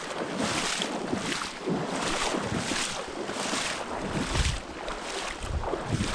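Rhythmic swishing footsteps, about one stride every second or less, as a hunter moves through the marshy creek, with wind buffeting the microphone in gusts near the end.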